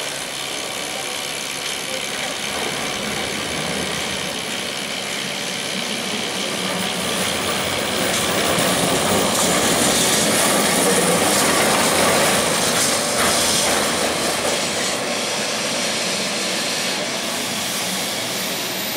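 Historic Lisbon electric tram, a Carris Remodelado, running past on its street rails. The rumble grows louder to a peak about halfway through as it passes close, then eases off as it moves away, over general street noise.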